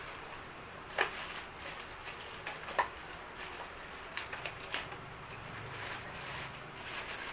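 Scattered light clicks and taps from a mini sewing machine and its parts being handled, with a sharp click about a second in.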